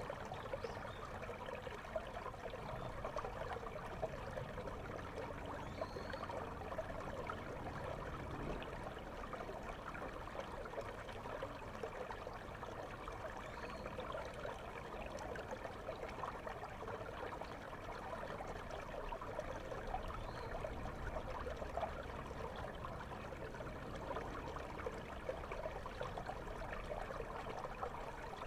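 River water flowing over a stony bed, heard with the camera underwater: a steady muffled rush full of fine bubbling crackle.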